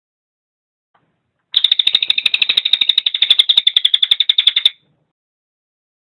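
Crested jay (cililin) giving its rattling call: a fast rattle of about ten pulses a second lasting about three seconds, starting a second and a half in and stopping abruptly.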